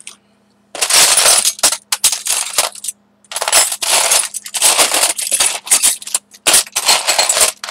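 A handful of small hard craft embellishments clinking and rattling as a hand rummages and stirs through them in a container, in three long bouts of rapid clatter with brief pauses between.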